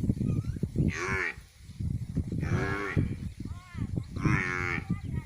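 An animal calling about three times, short pitched calls about a second and a half apart, over a low rumbling noise.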